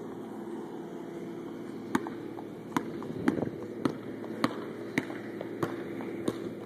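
A series of sharp knocks on hard concrete, about one every 0.6 seconds, starting about two seconds in, over a steady low hum.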